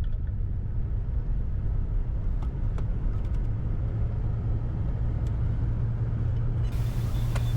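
Steady low rumble of a vehicle running, with a constant low hum.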